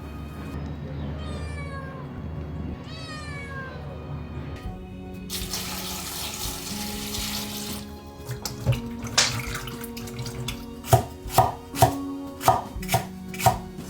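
A cat meows twice, each call falling in pitch. Then water runs for about three seconds, and a quick series of knocks and clatters follows.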